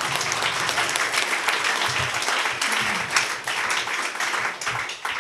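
Audience applauding: many hands clapping in a dense, steady patter that dies down near the end.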